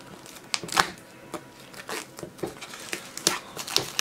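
Clear plastic shrink-wrap crinkling and tearing as fingers pick at it and peel it off a cardboard box, in irregular crackles, the sharpest about a second in.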